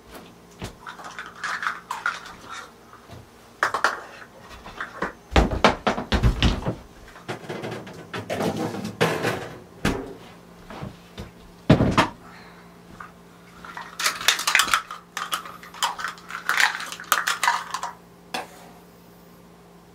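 Kitchen clatter as dishes, utensils and cupboard doors are handled, with a few loud knocks in the middle. Near the end, a cup scrapes coffee grounds out of a metal coffee can.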